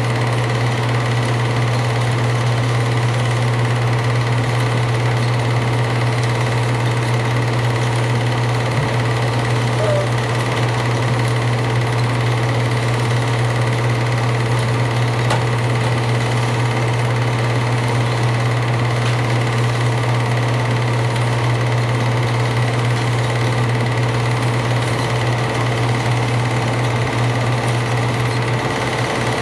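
Film projector running during an 8mm film transfer: a steady mechanical whir from the motor and film transport.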